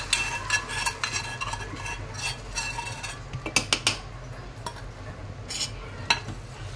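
Steel ladle stirring caramelised sugar into milk in a metal pot, scraping and clinking against the pot's sides and bottom. There are several sharp knocks in quick succession about three and a half seconds in and another near six seconds.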